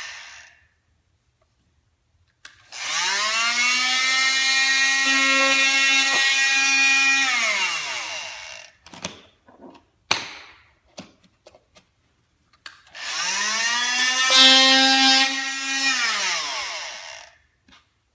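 Oscillating multi-tool (oscillating saw) switched on twice. Each time its motor whine rises as it spins up, runs steadily for about four to five seconds, then falls away as it winds down. A few clicks and knocks come in the pause between the runs.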